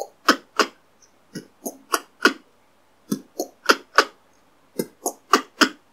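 Beatboxed combo of kick drum, outward K snare and double rimshot (B-k-K-K) performed slowly by mouth. Each pass is four sharp clicks about a quarter second apart, repeated about three times with short gaps between.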